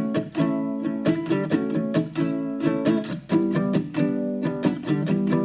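Background music: an acoustic guitar strummed in a steady rhythm of quick chords.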